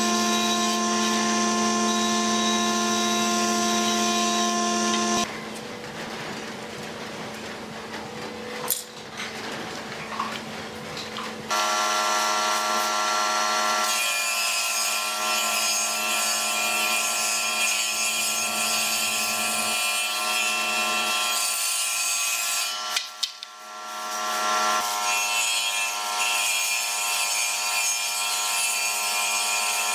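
Combination woodworking machine running with a steady, loud hum while pallet-wood boards are fed through it, with the rasp of the wood being cut. For several seconds in the first half it drops to a quieter, rougher sound, then runs loud again, with a brief dip a little past the middle.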